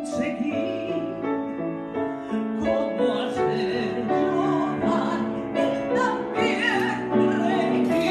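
A woman singing a musical-theatre ballad with vibrato, accompanied by a symphony orchestra with piano; the voice comes forward about three seconds in.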